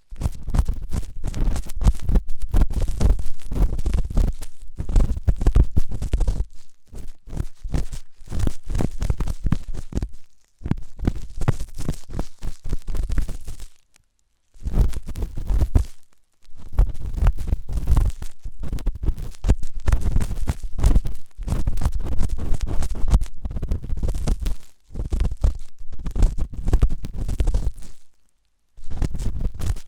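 Ear-cleaning tools scraping and rubbing hard right at the microphone's ear, rapid scratchy strokes with a deep rumble under them. They come in bouts broken by short pauses.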